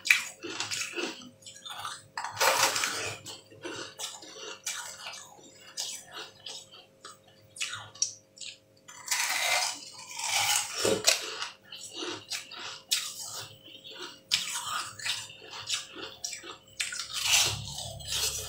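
Chewing a chunk of green-tinted ice close to the microphone: sharp crunching and cracking in three loud bouts, with quieter crunches and clicks between.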